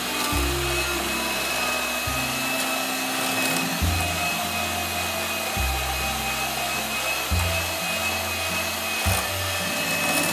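A small electric kitchen appliance motor running steadily with a thin high whine, and it stops near the end. Background music with a slow bass line plays underneath.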